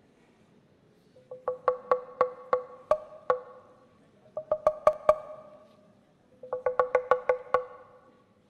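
Percussive music: three short runs of sharp wooden knocks, each knock ringing on a pitched note, with brief pauses between the runs.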